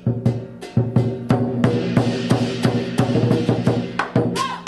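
Traditional Cantonese lion dance drumming (Hok San Gu) as background music: a drum beating in quick, uneven strokes, with a bright crashing layer joining in about a second and a half in.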